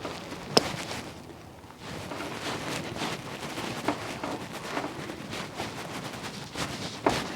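Pliers and plastic handling: small clicks and scraping as the broken end piece of a windshield washer sprayer is worked out of its rubber hose, with a sharp click about half a second in and another near the end.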